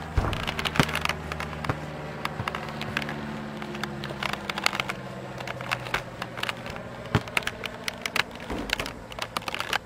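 A light propeller plane's engine droning overhead as a steady low hum that fades after about six seconds. Frequent sharp clicks and crackles run over it throughout.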